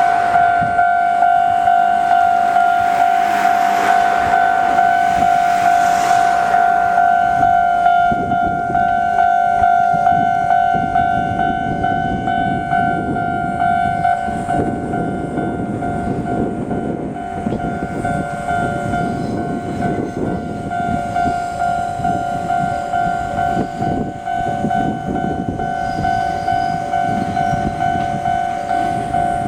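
Japanese level-crossing alarm ringing with a steady, regular pulsing two-tone clang. A rushing noise rises and fades around four to six seconds in; from about eight seconds on, an electric train rumbles and rattles at walking pace over the crossing on the depot spur.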